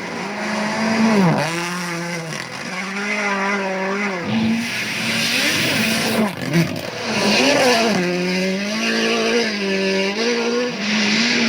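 Rally car engine at full throttle, its note rising and dropping sharply again and again through gear changes.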